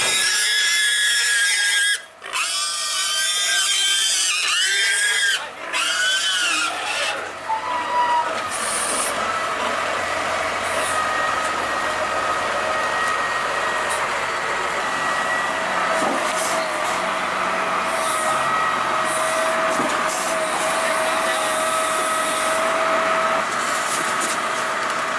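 A pig squealing loudly in long cries, broken twice by short pauses, for the first eight seconds or so. After that a wheel loader's engine and hydraulics run with a steady whine as the bucket lifts the pig.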